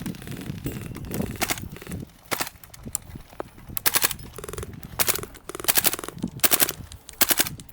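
Gas blowback airsoft rifles firing short full-auto bursts, about seven of them, each a quick run of sharp cracks, the later ones the loudest.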